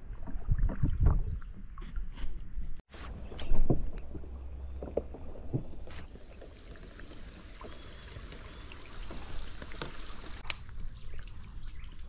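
A plastic sit-on-top kayak on a river: water sloshing and lapping against the hull, with scattered short knocks and splashes and a low rumble. It drops out briefly about three seconds in.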